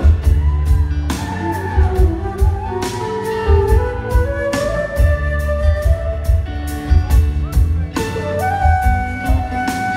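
Live blues-rock band playing an instrumental passage: a steady drum beat and electric bass under a lead melody that slides between long held notes.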